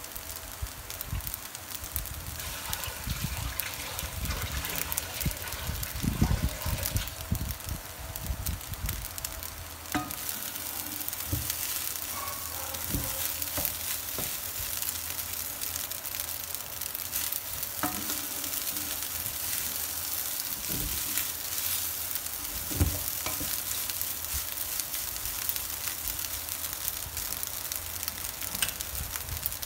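Rice and shrimp sizzling steadily in a nonstick frying pan as they are stir-fried with a wooden spatula. The spatula knocks and scrapes against the pan now and then, most strongly about six seconds in.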